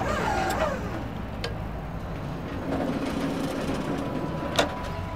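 An engine running steadily with a low hum, with two brief clicks, one about a second and a half in and one near the end.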